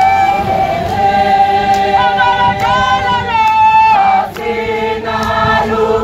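A group of marchers singing together, several voices holding long notes at different pitches, with a short dip in loudness about two-thirds of the way through before the singing picks up again.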